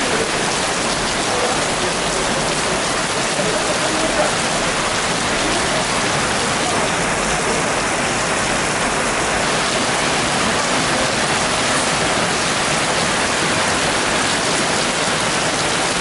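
Heavy rain pouring steadily onto wet pavement and street.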